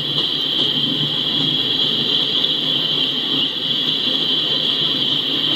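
Empty coal cars of a freight train rolling past at a steady pace: a continuous low rumble of wheels on rail, under a steady high hiss.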